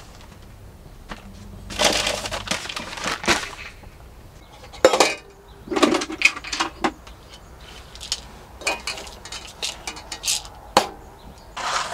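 Handling noise while a soft cooler bag is unpacked and things are set on a metal camping table: rustling about two seconds in, then a sharp knock near five seconds and scattered clinks and knocks of metal items.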